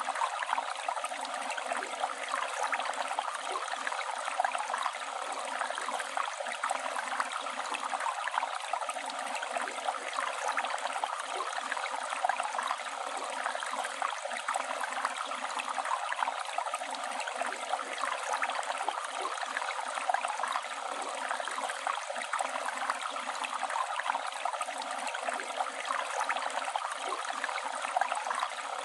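Flowing river water, a steady, unbroken rush with constant small splashes and babbling.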